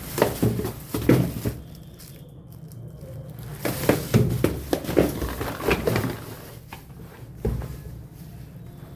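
Parcel packaging being handled: two runs of quick crinkles and taps, then a single dull thump near the end.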